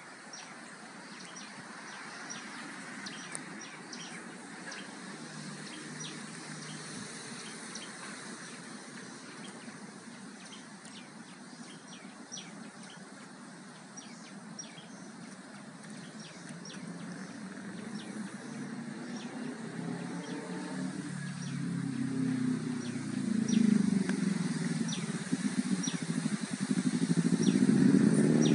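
Outdoor garden ambience with small birds chirping in short high notes throughout, as picked up by a phone's microphone. From about two-thirds through, a passing vehicle's engine grows louder, rising and falling in pitch, and is the loudest sound by the end.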